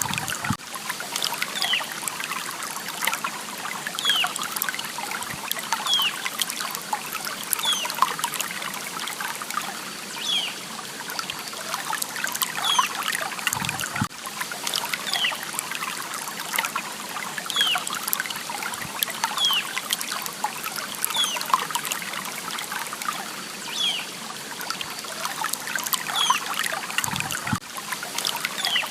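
Stream water trickling steadily, with short high plinks recurring every second or two.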